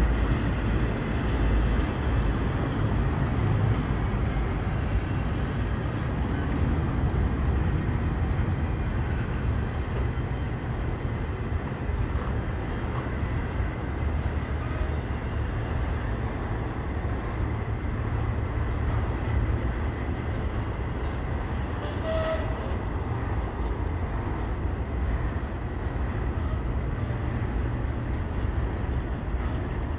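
Double-stack intermodal container cars of a CSX freight train rolling slowly past: a steady rumble of steel wheels on the rails, with a brief squeak about two-thirds of the way through.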